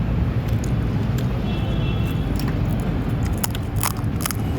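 A steady low rumble, with a few sharp clicks clustered near the end.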